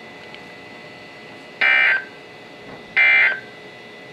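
Emergency Alert System end-of-message data burst on weather radio: two short, harsh digital screeches about 1.4 s apart, marking the end of a warning.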